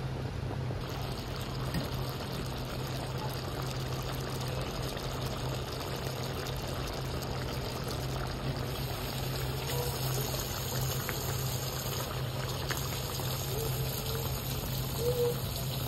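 Pot of water at a rolling boil, bubbling and churning steadily, over a steady low hum.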